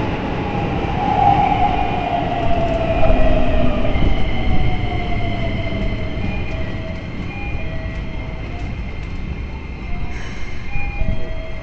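Keikyu 1000 series electric train running, heard from inside the car: steady running rumble with the whine of its Toyo IGBT-VVVF inverter. The whine slides down in pitch over the first several seconds, then breaks into short high tones.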